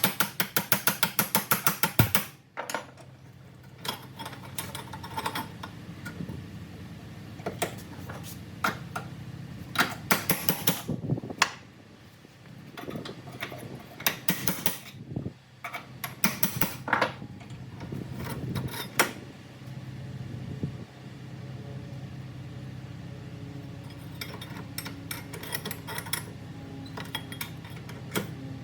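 Rapid metallic tapping for about two seconds, about seven strokes a second, then scattered clinks and clanks of hand tools and steel exhaust parts being worked. A steady low hum runs underneath.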